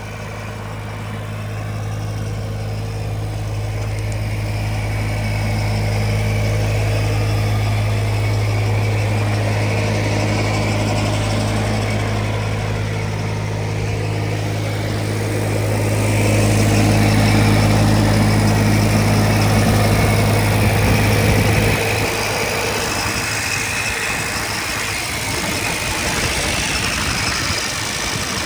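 Ditch Witch SK650 compact track loader's diesel engine running with a steady low hum. More hiss comes in from about 16 seconds, and about 22 seconds in the steady hum gives way to a rougher, noisier sound.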